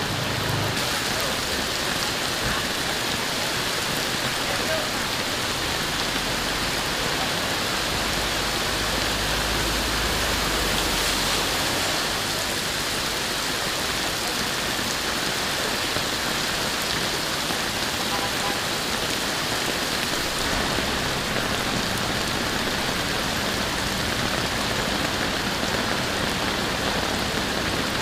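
Heavy rain pouring steadily onto a flooded street, a continuous even hiss of rain on standing floodwater.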